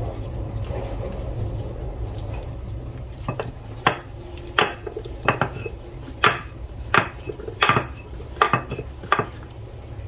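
Rolling pin knocking on the board in a steady rhythm, about one knock every 0.7 seconds, as chapati dough is rolled out. The knocks start a few seconds in.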